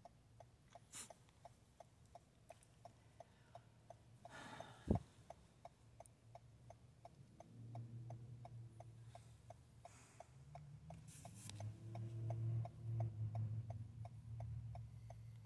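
Faint, steady ticking of a Toyota Camry's hazard-light flasher, about three clicks a second. There is a single knock about five seconds in, and a low hum builds after about eight seconds.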